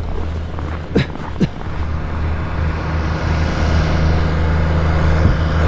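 A vehicle engine running steadily, with two brief sounds about a second in; the engine noise swells and grows louder in the second half.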